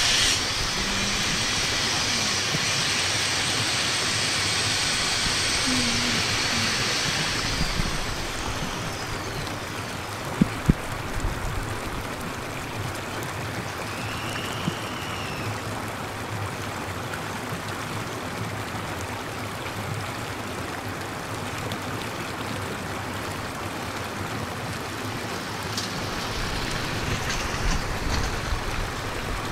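Steady rush of falling water, like heavy rain, with a brighter hiss for the first several seconds that then settles. There are a couple of sharp knocks about ten seconds in.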